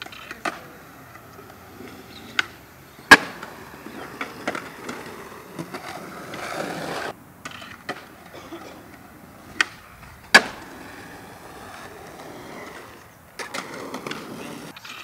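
Skateboard on concrete: wheels rolling with a steady hiss, broken by sharp clacks of the board, the loudest about three seconds in. About ten seconds in, a tail pop is followed under a second later by the board landing a jump down a concrete stair set, then rolling away.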